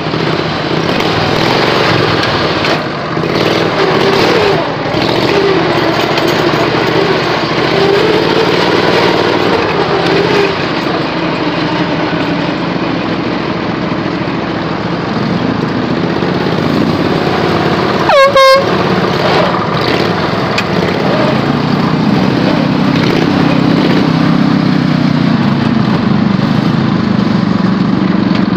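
Modified ride-on lawn tractor's engine running as it drives, its pitch wandering, then a fuller, deeper drone from about twenty seconds in. A short, loud horn toot about eighteen seconds in.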